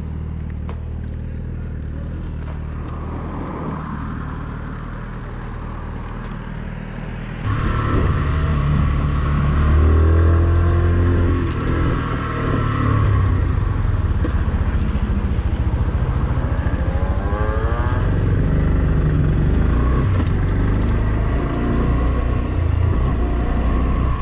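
Motorcycle engine idling steadily. About seven seconds in it gives way to a sport motorcycle being ridden, its engine louder and rising in pitch twice as it accelerates, over wind rush.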